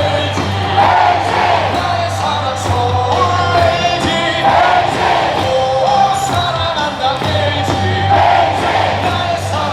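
Baseball crowd singing a cheer song in unison over loud amplified music with a steady beat, with whoops and yells among the fans.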